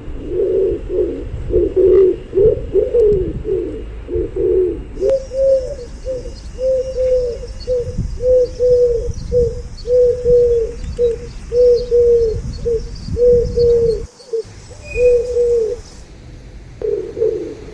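Pigeons cooing, several overlapping at first. From about five seconds in, a steady run of short repeated coos follows at about two a second, breaking off briefly after fourteen seconds before overlapping coos return near the end.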